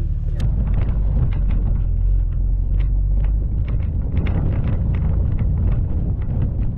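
Jeep driving over a rough dirt trail. Its engine and tyres make a steady low rumble, with frequent small knocks and rattles several times a second.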